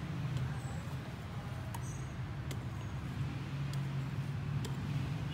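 A steady low hum, with a few faint clicks of a wire whisk knocking against the bowl as batter is whisked.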